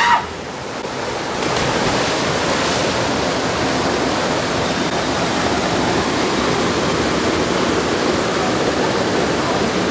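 Spring-fed river water rushing and churning steadily, growing louder about a second and a half in, after a short yell at the very start.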